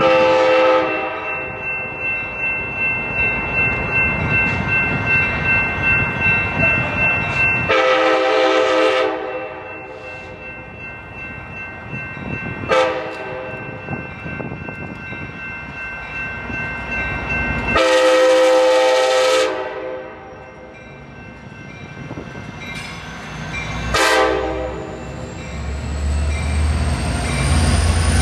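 Amtrak passenger locomotive's air horn sounding repeated blasts, long and short, several seconds apart, as the train approaches a street crossing. A steady high ringing runs under the horn through the first half. Near the end the locomotive passes close with a low rumble of the train.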